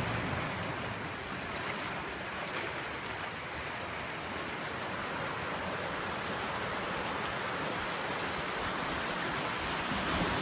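Surf breaking and washing over a rocky, boulder-strewn shore: a steady rush of waves.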